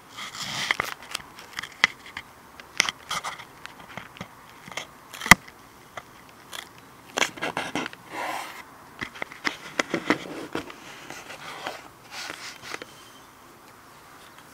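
Close handling noise on the recording iPod nano as it is worked into the belly of a foam EasyStar RC plane: irregular clicks, scrapes and crackles, with one sharp click about five seconds in as the loudest.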